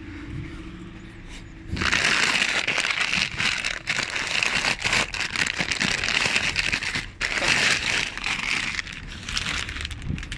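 Plastic bin bags, film and crisp packets crinkling and crackling as a gloved hand rummages through a bin. The crinkling starts loud about two seconds in and goes on, with a short break near seven seconds.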